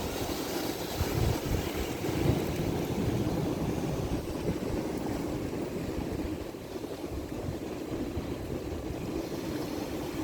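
Ocean surf washing continuously onto a shore, with wind buffeting the microphone.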